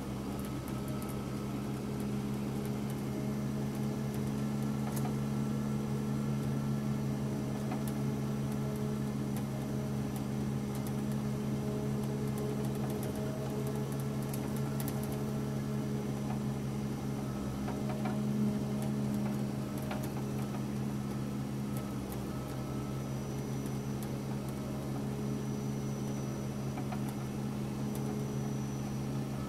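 Diesel engine and drivetrain of a Ponsse Ergo forestry harvester running steadily as the machine drives along, heard from inside the cab as an even low hum.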